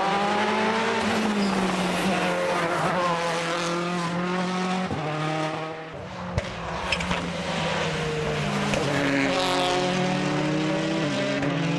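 World Rally Car turbocharged four-cylinder engines revving hard up a hillclimb, the pitch climbing and dropping with each gear change. A few sharp cracks come about seven seconds in, and a second car's engine overlaps the first near the end.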